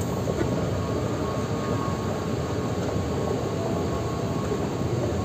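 Metro station escalator running with a steady low rumble, mixed with the busy hum of the station hall and a faint steady tone.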